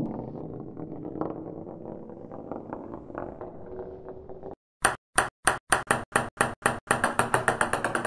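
Bowling ball rolling across a floor with a steady rumble that stops about four and a half seconds in. Then a ping pong ball bouncing: a dozen or so sharp clicks that come faster and faster as the bounces die down.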